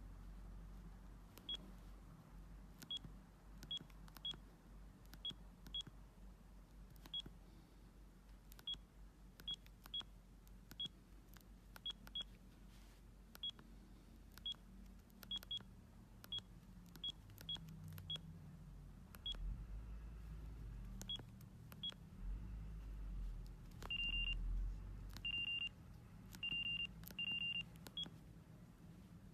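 Bird S1150 mobile phone beeping: short high single-pitch beeps at irregular intervals, then, near the end, a run of longer beeps of one tone that come in pairs.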